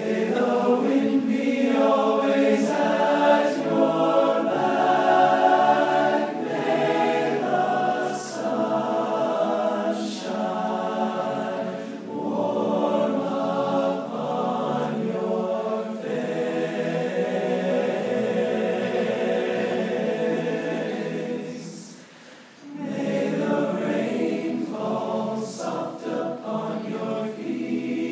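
A large all-male a cappella group singing in close harmony with long held chords. The singing breaks off briefly about three-quarters of the way through and then starts again.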